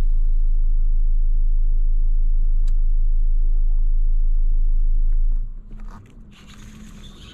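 Electric trolling motor on a bass boat running steadily as a loud, low hum, which cuts off about five and a half seconds in.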